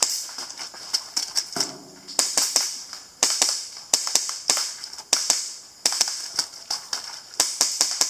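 Airsoft pistol firing strings of rapid, sharp shots in quick clusters through a timed IPSC Action Air course of fire. There is a short pause in the shooting between about one and a half and two seconds in.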